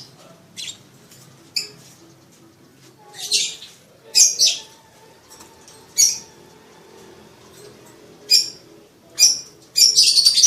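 Lovebird chirping: short, shrill, high-pitched calls at irregular intervals, some doubled, crowding together near the end. The uploader presents it as a female lovebird's breeding-season call to arouse a male.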